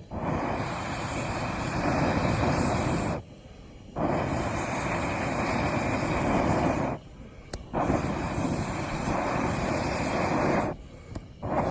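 Rushing air noise in three long stretches of about three seconds each, each ending abruptly with a short break before the next.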